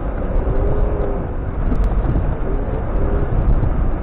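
Jeep Cherokee XJ driving off road, heard from inside the cab: a steady low rumble of engine and tyres, with a faint whine that wavers slightly in pitch.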